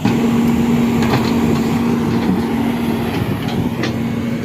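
Excavator diesel engine running at high, steady revs, a constant drone with a held tone, with a few faint knocks.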